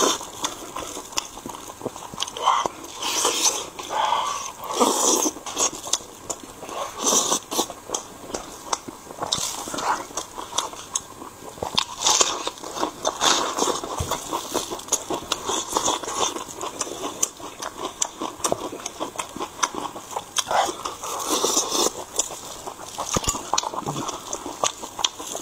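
A person eating noisily: wet chewing and smacking on braised pork knuckle, with crunchy bites into a raw red onion, as a run of irregular bites and clicks.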